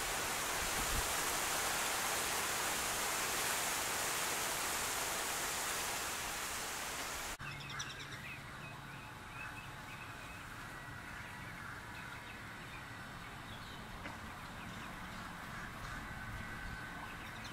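Steady outdoor hiss that cuts off abruptly about seven seconds in, followed by a quieter outdoor background with scattered short bird chirps.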